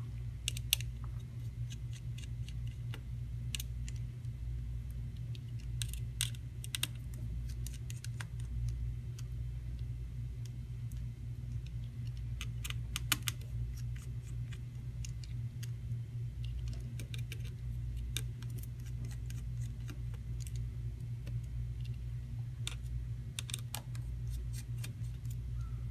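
Scattered small clicks and ticks of a Phillips screwdriver on the tiny shield screws of an iPod Touch 6th generation, the screws coming out and being set down, over a steady low hum.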